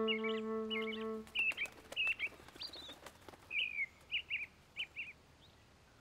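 Small birds chirping in a run of short, high calls spread over about five seconds, then stopping. Under the first chirps a soft held musical note fades out about a second in.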